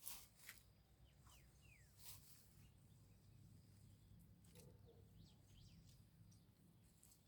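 Faint, scattered bird chirps: short, quick notes sliding downward, over a low steady hum, with a few soft clicks, the sharpest right at the start.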